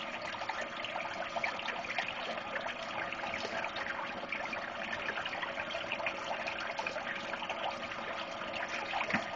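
Water splashing and trickling steadily as a pump forces it up through a homemade fluid bed gold concentrator.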